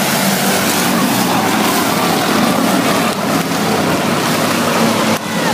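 A field of dirt-track stock cars racing past on the oval, their engines running loud and steady together.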